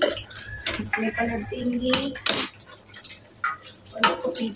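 Stainless-steel pots and utensils clinking and knocking as they are handled, with several sharp clinks and the loudest one a little past two seconds in.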